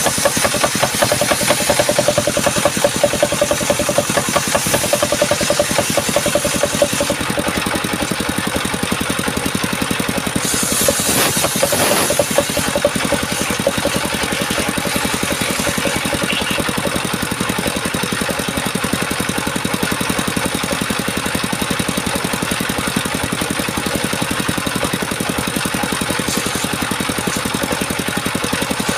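A chainsaw engine runs steadily with a fast pulsing beat. It is louder and busier for the first several seconds and briefly again near the middle.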